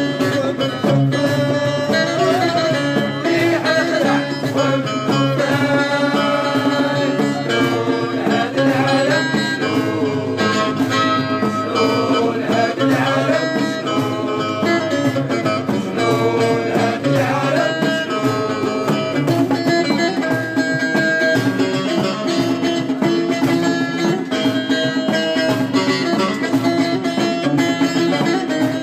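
Live music with plucked string instruments playing an instrumental passage without words.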